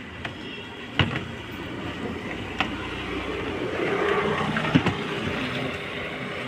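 Plastic dashboard and centre-console trim of a Hyundai Verna being handled and pushed into place: scraping and rustling, louder in the middle, with sharp knocks about one second in, at two and a half seconds and near five seconds.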